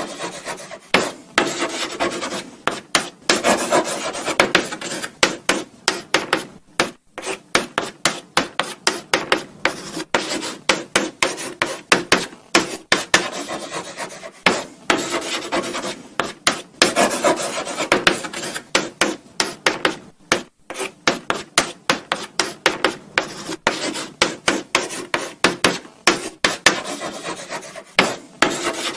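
Chalk writing on a blackboard: quick, irregular scratching strokes and taps, several a second, with brief pauses between bursts of writing.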